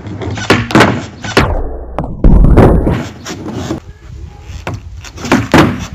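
Nozbone skateboard being popped and landed on a wooden deck during ollie practice: several sharp wooden clacks and thuds, the loudest a heavy thump a little over two seconds in, followed by a rumble from the wheels on the planks.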